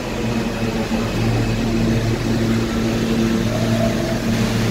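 Subway train standing at the platform, its onboard equipment giving off a steady low hum.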